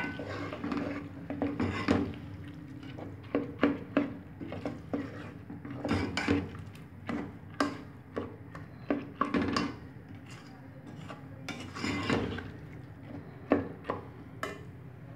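Metal ladle scraping and knocking against a metal cooking pot while stirring lentils frying in oil, in irregular strokes, some of them sharp clinks.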